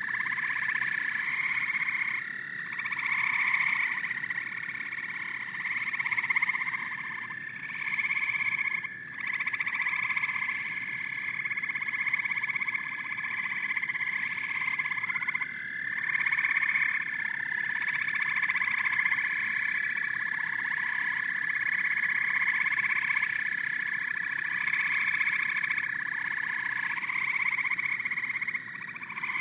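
A chorus of frogs calling: overlapping croaks repeat about once a second over a long, steady high trill.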